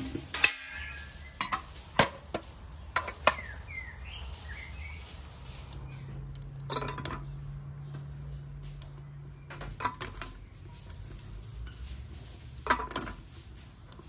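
Metal cookware and utensils clinking and knocking now and then, a few sharp clinks with short rings spaced a second or more apart.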